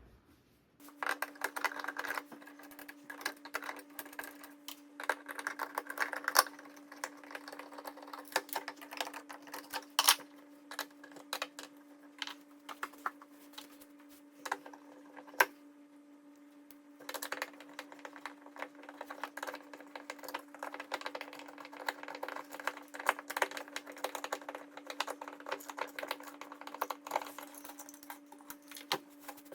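Irregular rapid clicks and clatter, like small hard parts being handled, over a faint steady hum.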